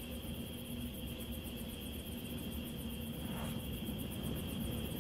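Steady background ambience: a high, even insect trill with faint rapid ticking above it, over a low continuous rumble.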